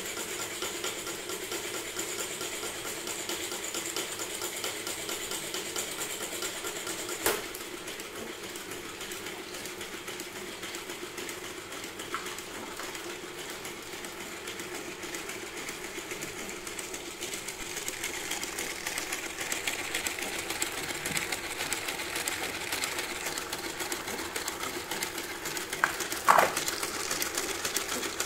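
3D-printed plastic (PLA and ABS) four-cylinder engine model running, its pistons and crank mechanism making a steady, fast mechanical clatter. A sharp click about 7 seconds in and a louder one near the end.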